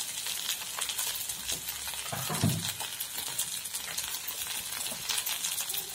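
Chopped spring onion stalks sizzling and crackling steadily in hot oil in a frying pan, for a stir-fried thoran. A short low sound comes a little over two seconds in.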